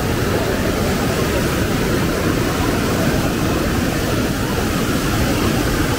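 Steady, loud outdoor rushing noise with a rumbling low end, unbroken throughout.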